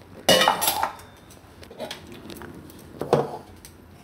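Steel kitchen vessels clanking as a mixer-grinder jar and its lid are handled: a loud ringing clank just after the start and a shorter knock about three seconds in.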